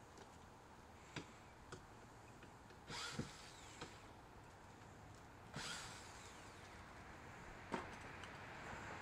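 Faint handling noise on a handheld phone: scattered clicks and two short rustling scrapes, about three seconds and five and a half seconds in, over a low hiss.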